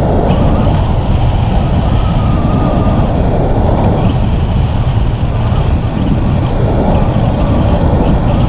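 Wind buffeting a camera microphone in flight: a loud, steady, low rumble.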